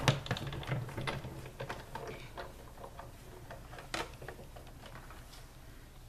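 Big Shot die-cutting and embossing machine being hand-cranked, the stack of plates and pads passing through its rollers with a run of irregular clicks and creaks. The clicks are densest in the first half, with one sharper click about four seconds in, then die away.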